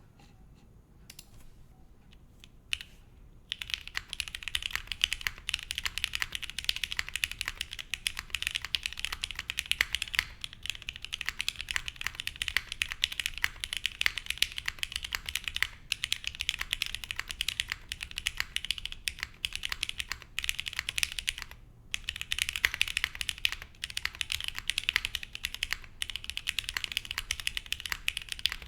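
Fast continuous typing on a plateless mechanical keyboard with lubed and filmed Gateron X switches and GMK Taro keycaps, a dense run of keystroke clicks with a few brief pauses. The first few seconds hold only a few isolated keystrokes before the typing begins in earnest.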